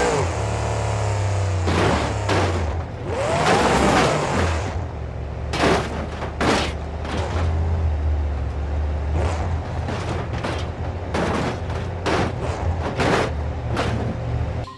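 Electronic police sound effects: siren wails rising and falling over a steady low engine-like drone. From about five seconds in, a string of sharp irregular gunshot bangs follows.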